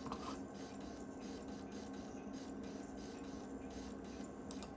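Quiet steady hum of a running iMac G3, with faint mouse clicks near the start and again near the end.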